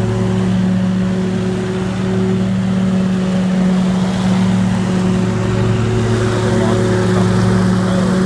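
Scag Tiger Cat II zero-turn mower running steadily at working speed with its bagging system, a constant engine drone with a rushing haze of air, dipping briefly about two seconds in.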